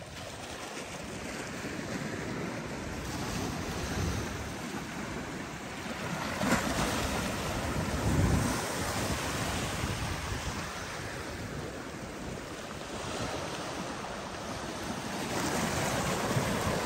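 Sea waves washing over and breaking against a water-worn rock shelf, rising and falling in surges, with the loudest splashes about six and eight seconds in. Wind buffets the microphone throughout.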